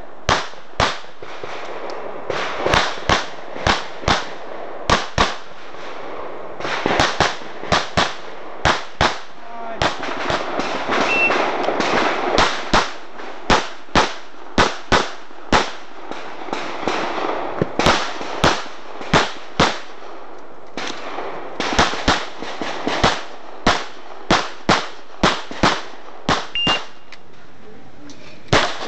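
Rapid pistol fire from a 9mm CZ 75 SP-01 Shadow: dozens of sharp shots, mostly in quick pairs, with short pauses of a second or so as the shooter moves between target arrays.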